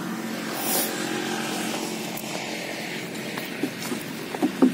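Backpack electrofishing unit buzzing steadily while its electrode poles are in the water, with a short hiss about a second in and a few sharp knocks near the end.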